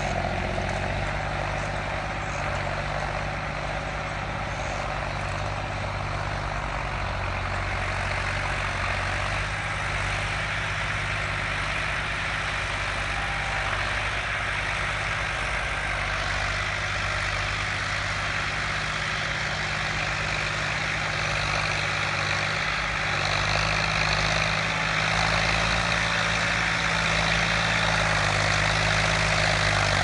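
John Deere 5310 tractor's three-cylinder diesel engine running steadily while pulling a five-tyne chisel plough through the soil, getting a little louder near the end as the tractor comes back toward the microphone.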